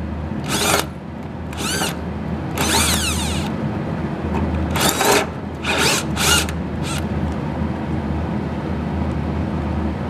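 Electric drill run in short bursts, each spinning up with a rising whine, as a 1/4-inch bit drills out a copper tube stub in the float valve of a GE CK26 Monitor Top refrigerator's cooling unit; the copper is hard to drill. About seven bursts come in the first seven seconds, then only a steady low hum is left.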